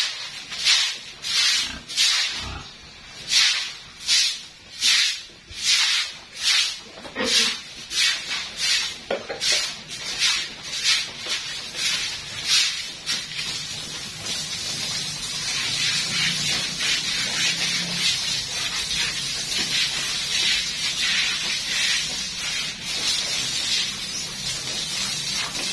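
Repeated swishing strokes, about three every two seconds, giving way about halfway through to a steady spraying hiss.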